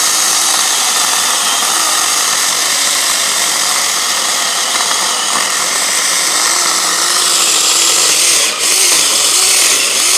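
Saker mini battery-powered electric chainsaw running and cutting through a log of hard red oak about four inches thick, its motor pitch wavering under load, with a brief dip about eight and a half seconds in.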